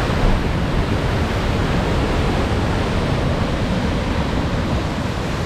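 Ocean surf on a rocky shore: a steady rushing noise with a heavy low rumble.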